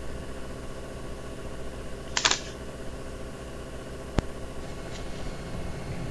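Clicks at a computer: a short clatter about two seconds in and one sharp click about four seconds in, over a steady background hum.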